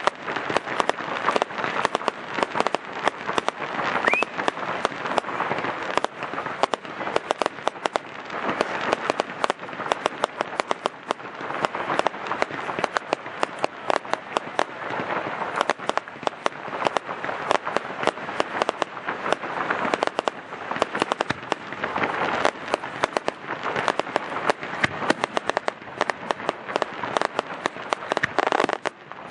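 Aerial fireworks display: a dense, continuous crackle of many sharp pops from bursting shells and crackling stars, with a brief rising whistle about four seconds in.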